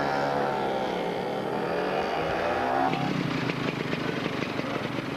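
Two-stroke motor scooter engine revving, its pitch dipping and then climbing again. About three seconds in it gives way to a closer, buzzier engine sound with a rapid pulse.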